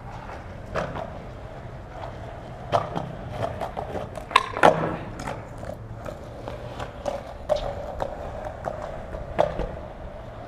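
Skateboard wheels rolling on concrete, with a string of sharp clacks and knocks from the board, the loudest a little over four seconds in.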